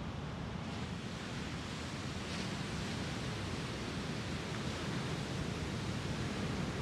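Lake Superior waves breaking and washing up onto a sand beach, a steady surf.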